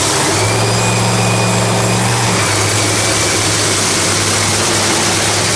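Nitro Funny Car's supercharged Hemi V8, running on nitromethane, idling loudly and steadily during a pit warm-up; its note settles a little lower about two seconds in.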